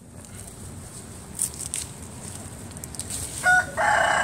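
Siamese cassia leaves rustling, with two sharp snaps as sprigs are broken off at the stem by hand. About three and a half seconds in, a rooster starts crowing, the loudest sound.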